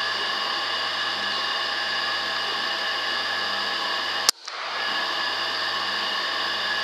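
Steady electronic hum and whine from a digital night-vision rifle scope's recording, made of many constant tones. A single sharp click comes about four seconds in, and the sound briefly drops out before the hum returns.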